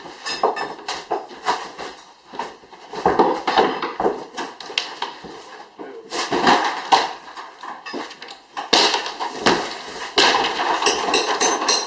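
Irregular bangs, knocks and clattering of demolition work as floor and wall material is torn out and debris is tossed.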